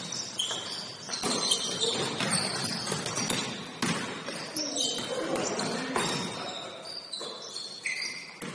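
Basketball bouncing on an indoor gym court, with repeated sharp knocks, short high sneaker squeaks and players' voices, echoing in a large hall.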